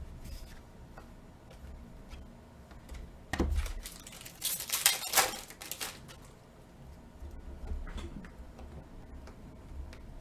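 A foil trading-card pack of Panini Mosaic soccer cards being torn open, its wrapper crinkling loudly for about a second and a half, just after a thump. Light clicks and ticks of the cards being handled on either side.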